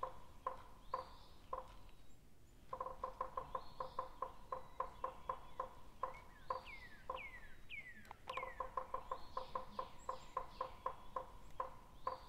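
Animal calls: rapid trains of short, evenly pitched calls, several a second, that break off and start again, with a few falling whistled calls about six to eight seconds in.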